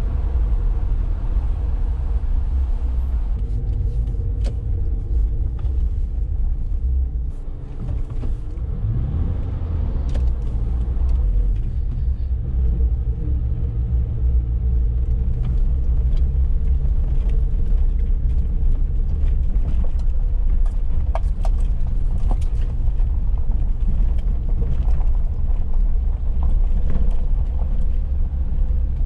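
Suzuki Jimny driving on a rough unsurfaced lane: steady low engine and road rumble with scattered light knocks and rattles. The engine note dips briefly and picks up again about eight seconds in.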